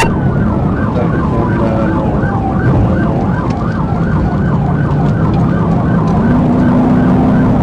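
Police car siren in a rapid yelp, about five sweeps a second, with a slower rising and falling wail under it, over road and engine noise.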